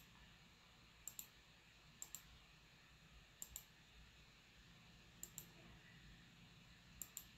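Faint computer mouse clicks: five quick double clicks, a press and a release each, spaced one to two seconds apart, over low background hiss.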